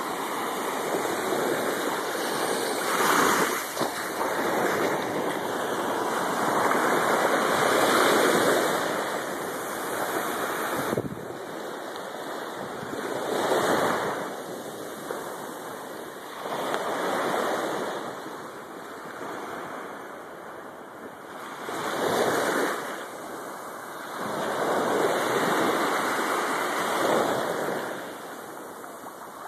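Small sea waves breaking and washing up on a sandy beach, a steady rush that swells and fades about every four to five seconds.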